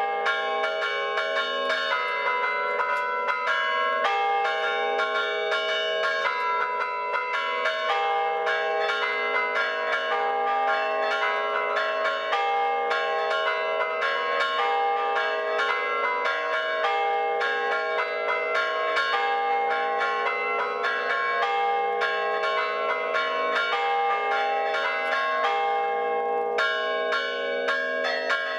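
A set of bronze church bells in a belfry chimed by hand: a ringer pulls ropes tied to the clappers so they strike the hanging bells. The strikes come in a fast, continuous pattern, each overlapping the ringing of the last.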